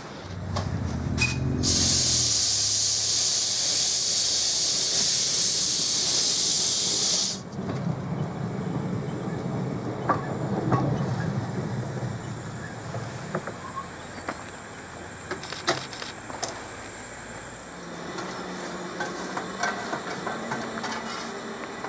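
Small narrow-gauge steam locomotive venting steam with a loud, steady hiss that cuts off suddenly about seven seconds in. Quieter clanks, clicks and a low rumble follow as the engine moves slowly.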